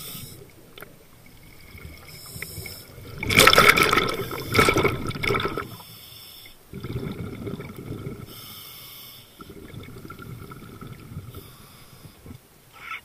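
Scuba diver breathing through a regulator underwater: a loud rush of exhaled bubbles about three seconds in, then quieter breaths in separate stretches.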